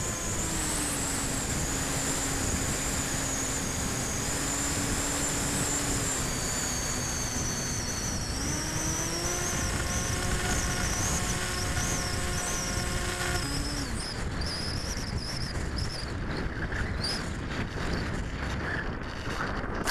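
Electric motor and propeller of a Volantex Ranger 1600 RC plane running under steady throttle, heard from a camera on the plane over wind rush. The whine steps up in pitch about eight seconds in, then cuts off about 13 seconds in as the throttle is closed. Wind noise and light rattling remain as the plane comes in low over the grass.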